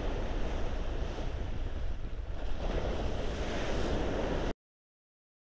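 Bow wave of a moving ship, sea water rushing and splashing against the hull, with wind buffeting the microphone. The sound cuts off abruptly about four and a half seconds in, leaving dead silence.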